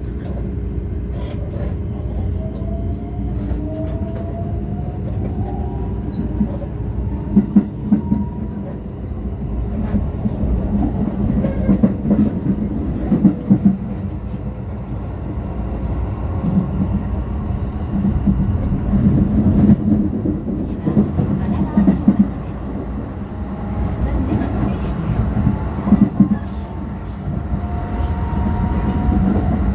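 Keikyu electric express train heard from inside the carriage as it pulls away and runs: a steady low rumble, with a motor whine climbing in pitch in the first several seconds and again near the end, and wheels knocking over rail joints now and then.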